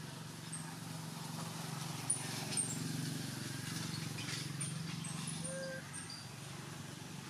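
Baby long-tailed macaque sucking at a juice box, with two small sharp clicks about two seconds in, over a steady low hum and brief high bird chirps.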